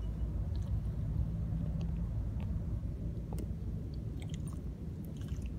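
A steady low rumble with scattered soft clicks and rustles from a dog sniffing and nosing about close to the microphone.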